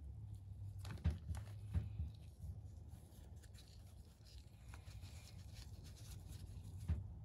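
Light handling sounds of gloved hands working a small glass pigment jar and a cloth pad: a few sharp little knocks, about a second in, near two seconds and near the end, with faint rustling between them, over a steady low hum.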